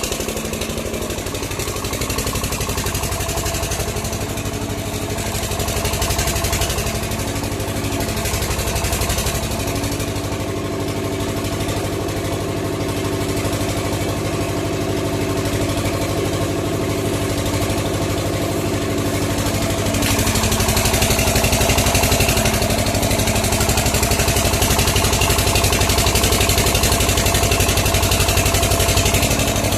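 A machine's motor or engine running steadily, with a louder hiss joining in about two-thirds of the way through.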